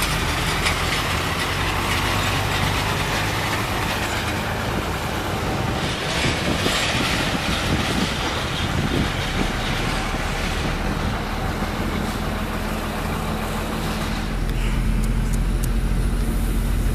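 Airport apron shuttle bus engine running, heard from inside the bus as a steady low hum under broad road and air noise. The engine sound grows louder about fourteen seconds in.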